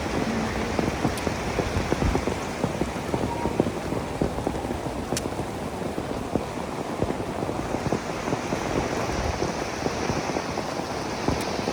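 Steady heavy rain falling, with the dense patter of many drops hitting surfaces.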